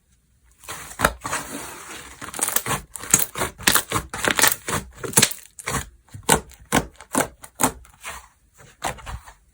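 Slime being pressed and squished by hand, giving a fast, irregular run of crisp pops and crackles that starts about half a second in.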